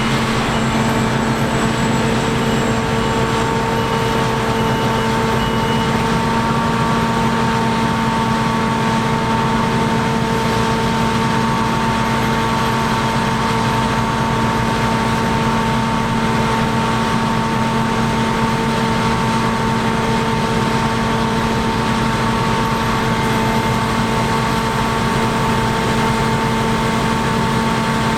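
Heavy harvest machinery running steadily: a constant diesel engine drone with several steady whining tones that do not change.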